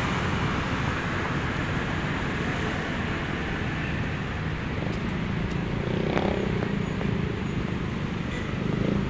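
Steady road traffic noise from cars and motor scooters passing on a city street.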